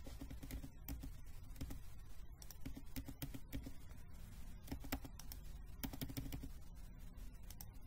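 Quiet, irregular clicking and tapping of computer keys, in short uneven clusters.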